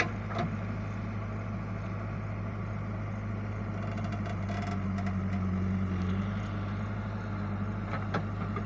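Diesel engine of an old Kirloskar-engined JCB backhoe loader running steadily, growing a little louder for a couple of seconds past the middle as it works harder, then settling. A few sharp knocks at the start and near the end.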